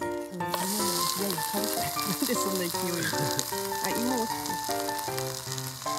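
A hamburger and French fries sizzling on the hot plates of a red electric hot sandwich maker as its lid is pressed shut. The sizzle starts about half a second in and plays over background music.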